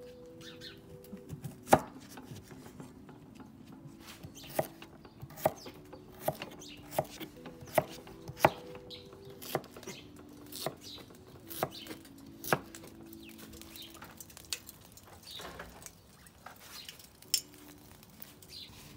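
Large kitchen knife chopping carrots on a wooden cutting board: sharp single knocks about once a second, over soft background music with sustained chords.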